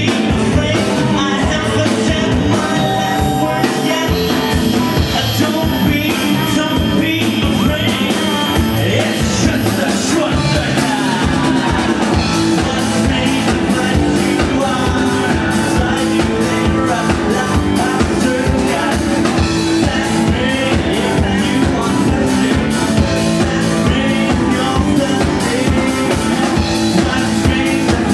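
Rock music with drums, guitar and singing, loud and steady throughout.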